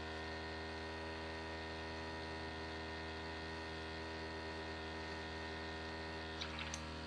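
Small airbrush compressor motor running with a steady hum, with a few faint clicks near the end.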